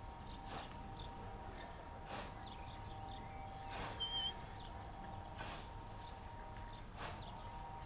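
Hand scythe with a 75 cm blade mowing tall grass: five swishing strokes, about one every second and a half. Birds chirp faintly behind.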